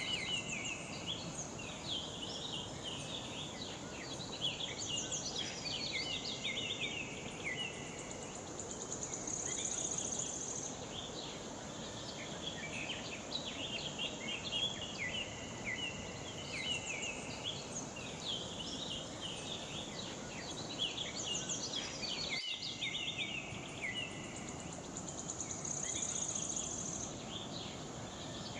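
Many birds chirping and calling with insects trilling in short bursts, over a steady rushing hiss like water pouring down the dam's spillway. The same run of calls comes round again about every 16 seconds, as in a looped recording, with a brief break a little past two thirds of the way in.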